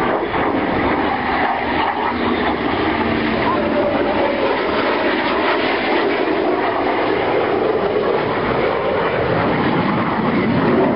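Aircraft engine noise from a passing military flyby, a loud steady rushing sound with no breaks.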